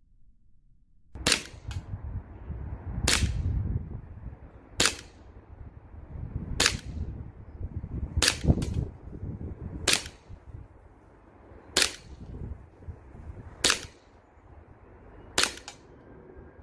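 Glock 17 Gen 4 CO2 blowback BB pistol firing steel BBs: nine sharp shots about every two seconds, starting about a second in, a few followed closely by a second, smaller snap. The pistol is cycling properly on a good CO2 cartridge, over a steady low rumble.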